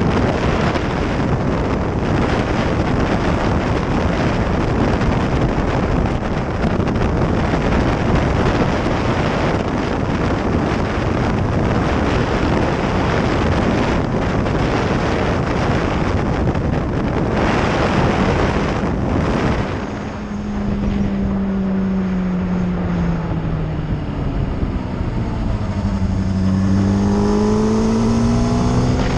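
Sport motorcycle ridden at speed, heavy wind rush over the on-bike microphone drowning the engine. About two-thirds of the way through the wind drops and the engine note comes through, falling as the bike slows, then rising again as it accelerates.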